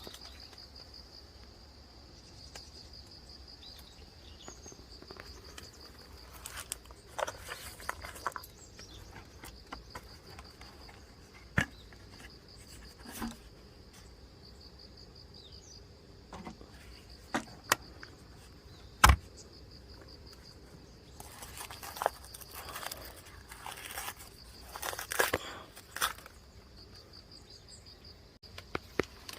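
Insects, likely crickets, trilling steadily in a fast pulsing high tone. Over it come scattered clicks, knocks and short bursts of rustling from things being handled, with one sharp knock about two-thirds of the way through.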